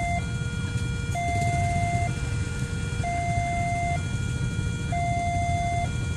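Two-tone hi-lo siren, switching evenly between a higher and a lower note about once a second, over a steady low vehicle rumble.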